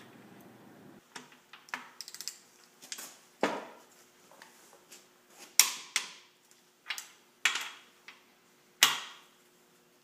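Click-type torque wrench on the main cap bolts of a Ford FE V8 block, breaking with sharp metallic clicks as each bolt reaches the 70 ft-lb setting. About a dozen clicks come at irregular spacing, each with a short ring, the loudest in the second half.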